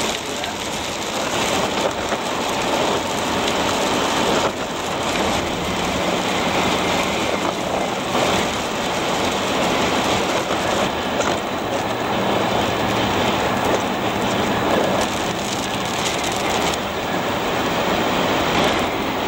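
Steady road and tyre noise heard from inside a moving vehicle.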